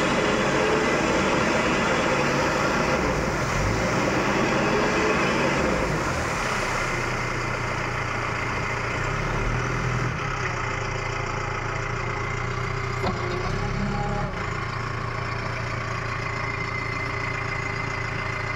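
Mahindra EarthMaster SX backhoe loader's diesel engine running steadily while the machine stands in river water. For the first few seconds a spinning wheel throws up a spray of water that splashes over the engine sound.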